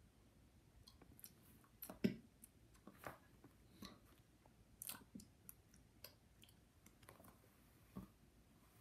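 Faint, irregular mouth clicks and lip smacks from a person close to the microphone, the loudest about two seconds in.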